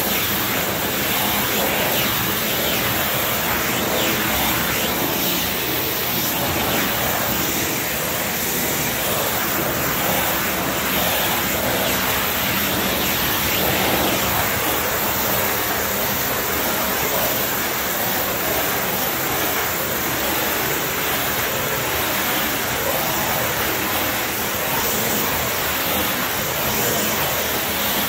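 Hard-surface extraction wand spraying water onto ceramic tile and vacuuming it back up: a loud, steady rushing roar of suction airflow.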